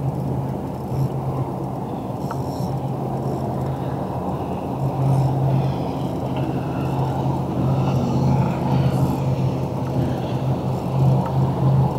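Small Mercury outboard motor running steadily, a constant low hum.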